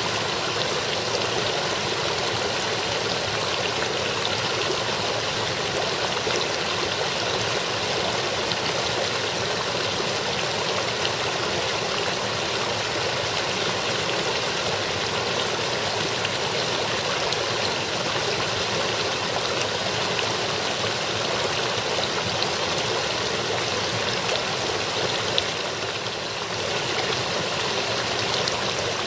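Partly frozen brook babbling over rocks between ice and snow: a steady rush of flowing water.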